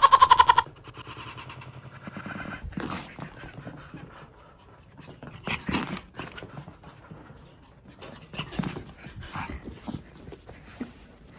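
Maltese dog in a frenzied greeting, panting, whimpering and snuffling in short scattered bursts. It opens with a loud, quavering high-pitched cry in the first half-second.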